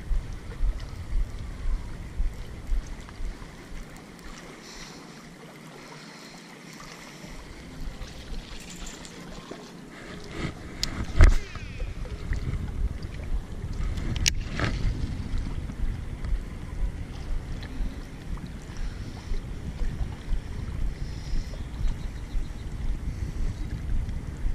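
Wind buffeting the camera microphone in uneven gusts, easing for a few seconds before picking up again. Two sharp knocks break through, about eleven seconds in and again three seconds later.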